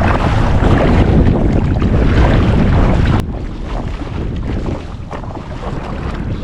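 Strong wind buffeting the microphone, with choppy sea water washing around a kayak. About three seconds in the noise drops abruptly to a quieter level.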